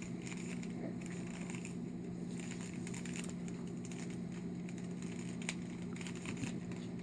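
Rubik's cube being scrambled by hand: irregular light plastic clicks of the layers turning, over a steady low hum.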